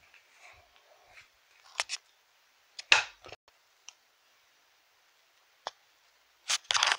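Handling noise: scattered short clicks and rustles as things are moved about by hand. The loudest comes about three seconds in, and a quick cluster comes near the end.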